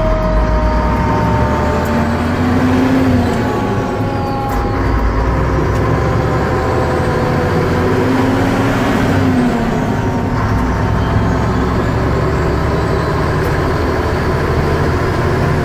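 Mack ENDT673 Thermodyne turbo-diesel of a 1978 Mack CF611 fire truck running under load, heard from inside the cab. It is a steady heavy rumble whose engine note slowly falls and rises a few times as the truck is driven through the gears of its Spicer 5-speed.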